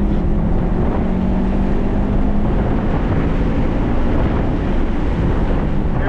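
Subaru WRX STI's turbocharged flat-four engine running hard at track speed, a steady note that rises slightly about a second in, under heavy wind rush on the microphone.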